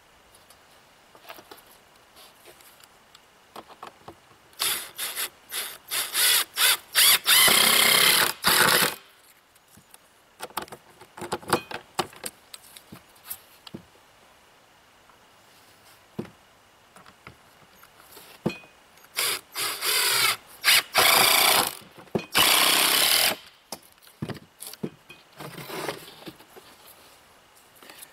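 Cordless drill driving screws into a plywood panel. There are two spells of it, one a few seconds in and another about twenty seconds in, each a few short trigger bursts and then a longer run of the motor, with a shorter burst near the end.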